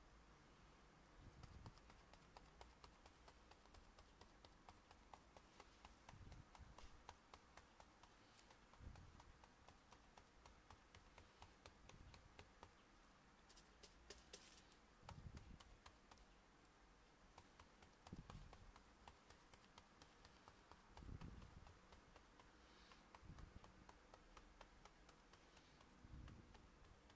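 Faint, quick tapping of a round sponge pouncer dabbing paint through a stencil onto a canvas bag, with a few soft low thumps every few seconds.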